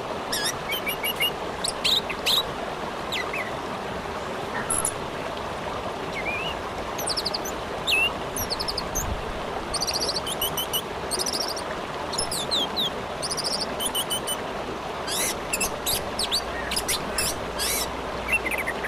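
Orange-headed thrush singing a long run of varied phrases, quick high chirps, short whistled sweeps and fast rattling note series, over the steady rushing of a river.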